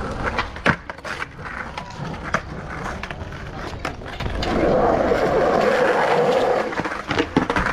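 Skateboard wheels rolling over rough concrete, with scattered sharp knocks from the board. The rolling is loudest and steadiest for about two seconds in the second half.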